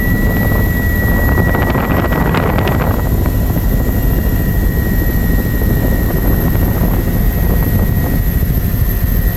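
Helicopter cabin noise in level flight: a steady low rumble from the rotor and engine with a constant thin whine over it. A brief rush of louder hissing noise comes about two seconds in.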